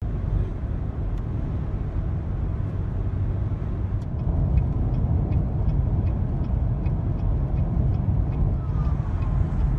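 Steady road and engine noise of a car driving at highway speed.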